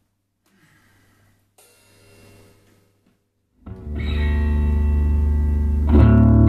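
A faint low hum, then an electric guitar through an amplifier strikes a loud chord about halfway in and lets it ring on. A louder chord comes in near the end.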